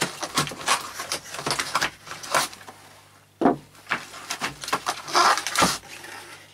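Handling noise from unpacking pliers out of a cardboard box: cardboard and packaging rustling and scraping in irregular bursts. A sharp knock about three and a half seconds in, as a pair of Bahco pliers is set down on the wooden workbench.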